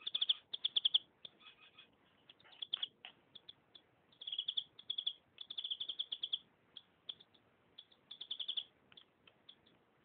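Canary singing: runs of rapid, high chirping notes in short bursts, with single chirps and brief pauses between them.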